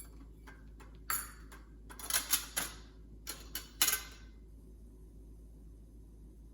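Small stainless steel spice containers clinking and clattering against each other and the box as they are handled, a run of sharp metallic clinks within the first four seconds.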